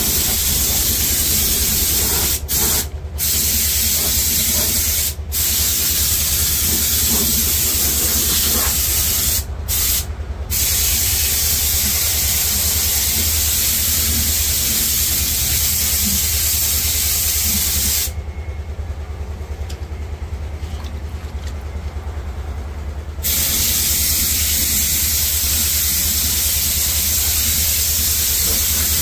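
Spray gun hissing as it sprays rubberized anti-rust underbody coating, in long steady bursts. The hiss breaks off briefly several times in the first ten seconds and stops for about five seconds about two-thirds of the way in. A steady low hum runs beneath it.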